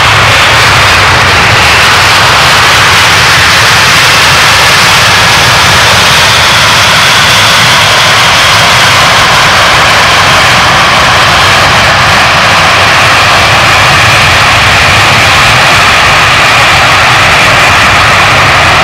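Antonov An-124-100M's four D-18T turbofan engines during the landing rollout: a loud, steady jet roar with a faint high whine drifting over it.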